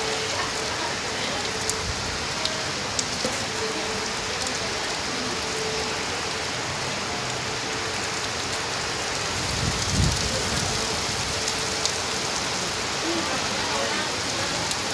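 Heavy rain pouring steadily, with scattered drop ticks. A brief low rumble swells up about ten seconds in.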